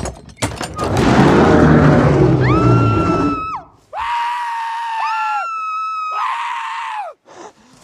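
Two sharp thuds at the wooden gate, then a gorilla's deep, rough roar from about a second in. After that comes a run of long, high, held screams, two voices overlapping at times, before they cut off near the end.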